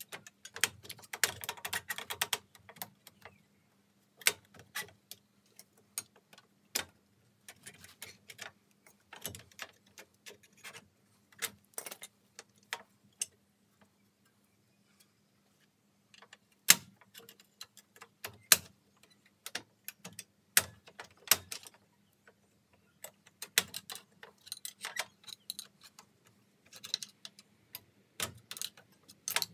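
Irregular metallic clicks, clinks and taps of rear drum brake parts (shoes, springs and clips) being worked on by hand and with a tool. There is a dense run of clicking about a second in and a few louder sharp clicks in the second half, over a faint steady low hum.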